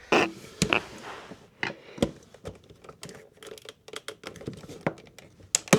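Scattered sharp clicks and knocks with light handling noise between them, from hands working at the caravan's electrical switchgear or socket fittings; the loudest knocks come about a second in, at two seconds and near the end.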